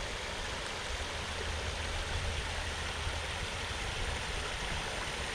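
Creek water rushing over a beaver dam, a steady even rush with a low rumble underneath.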